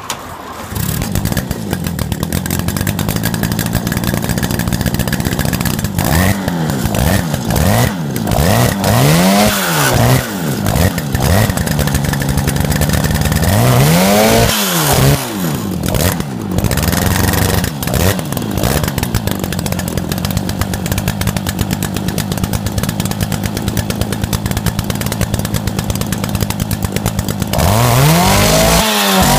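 The two-stroke twin-cylinder engine of a twin-engined Motobécane Mobylette moped catches within the first second as it is pedalled on its stand. It then runs loud and rattly, revved up and down several times, with a steadier spell of idling before a last blip of the throttle near the end.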